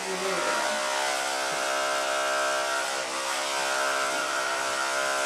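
Electric animal clippers buzzing steadily as they shave a patch of fur on a dog's neck.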